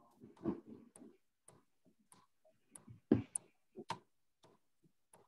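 Hatchet chopping into a wooden bowl blank, cutting out chips around the drilled centre hole. Irregular faint knocks, the loudest about half a second in and about three seconds in.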